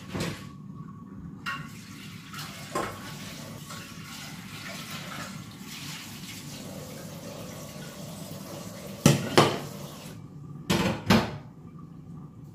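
Water running into a kitchen sink, with a few sharp clatters of pots and dishes; the water stops about ten seconds in, just before a last pair of clatters.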